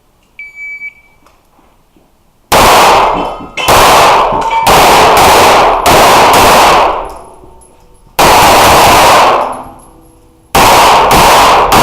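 A shot timer's faint, short start beep, then a string of pistol shots starting about two and a half seconds in. The shots come in quick groups with brief pauses between them, each ringing out with a long echo in the indoor range.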